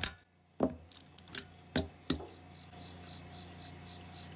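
A few sharp metallic clicks and clinks of a socket wrench on the mower engine's spark plug, spaced irregularly over the first two seconds, then only a faint steady background.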